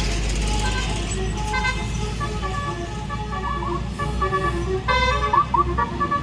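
Telolet basuri melody horn on a QQ Trans tour bus playing a tune: a multi-trumpet air horn sounding a run of stepped notes, often several at once, louder from about five seconds in, over a low rumble.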